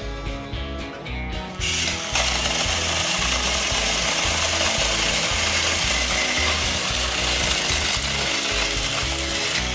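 Battery-powered Plarail toy train motors and gears buzzing steadily as the engines run on plastic track, starting about two seconds in, over background music.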